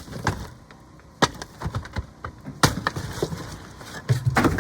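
Sledgehammer blows breaking through a ceiling: several sharp heavy impacts about a second or so apart, with wood cracking and splintering between them.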